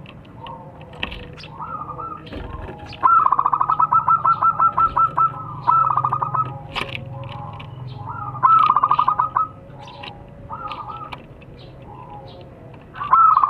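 Zebra dove (perkutut) cooing in runs of fast, rapid-fire staccato notes: one long run about three seconds in, then several shorter runs, the last starting near the end.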